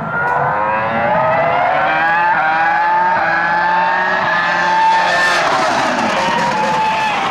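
2004 Formula One car's 3.0-litre V10 engine accelerating hard out of a corner. The pitch climbs through quick upshifts, then drops after about five seconds as the car goes past, with a second car also audible.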